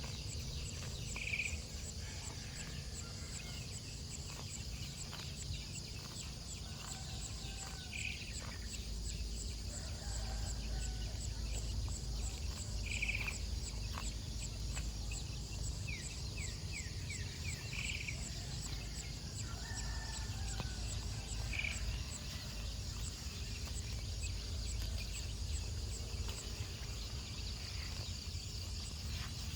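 Insects trilling steadily, with short bird calls every few seconds and a low rumble of wind or distant noise underneath.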